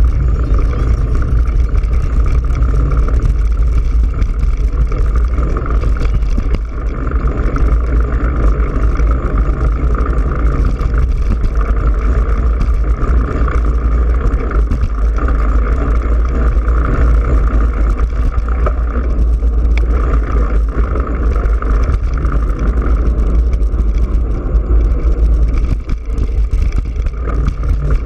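Wind rushing over the microphone of a GoPro Hero3 riding on a moving bicycle: a loud, steady low rumble.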